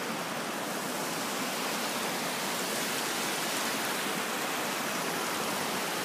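A mountain stream rushing steadily over rocks, an even hiss of water without a break.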